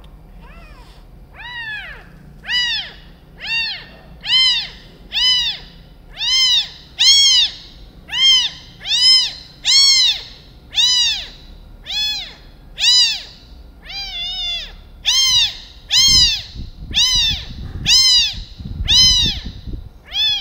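A kitten under a month old mewing over and over, about one high-pitched cry a second, each cry rising and falling in pitch, as it is held for maggots to be picked from its eye. Muffled handling rumbles come twice near the end.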